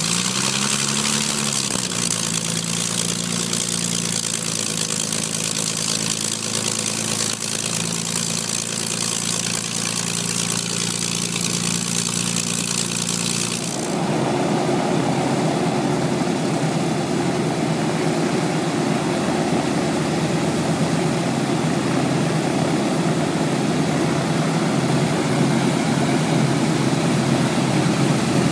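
Warbird's piston aero engine running at idle, cold, after starting: a steady engine note whose pitch rises and settles in the first couple of seconds. About halfway through the sound changes abruptly to a rougher, lower running engine.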